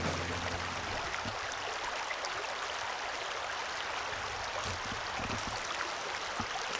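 Shallow, rocky stream running: a steady hiss of flowing water, with a few faint ticks.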